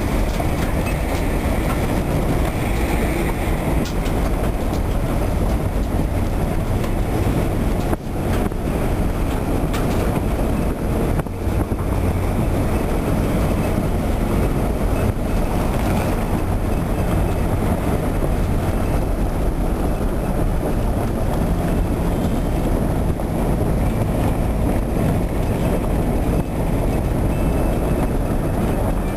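Steady low rumble of a vehicle driving, its engine and road noise unbroken.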